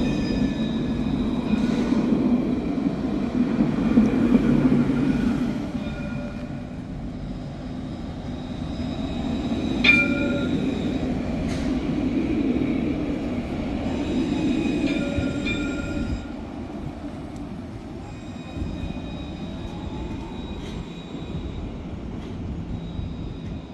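Alstom Citadis tram running along the track: a steady rolling rumble with thin high-pitched tones that come and go, and one sharp click about ten seconds in. The running noise eases after about sixteen seconds.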